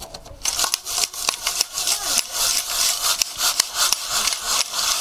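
Freshly roasted chickpeas and roasting sand rattling and hissing in a metal bowl as it is shaken to sift the sand from the chickpeas. It is a dense, fast rattle of many small clicks that starts about half a second in.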